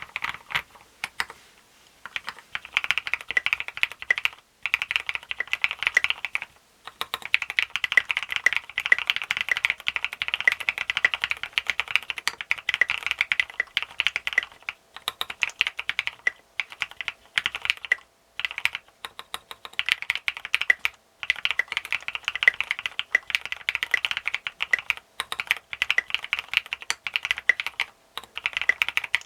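Fast, continuous typing on a Duck Eagle v3 mechanical keyboard built with retooled Cherry MX Black linear switches on a plastic plate, top-mounted, with SA-profile keycaps: a dense clatter of keystrokes with a few brief pauses.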